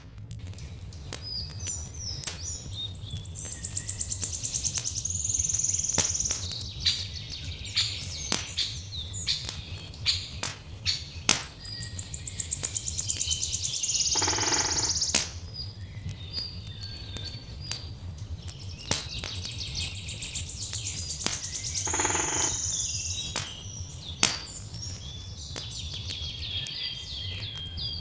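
Songbirds chirping and singing in repeated trilling phrases over a crackling wood fire, which gives off frequent sharp pops. A steady low rumble runs underneath.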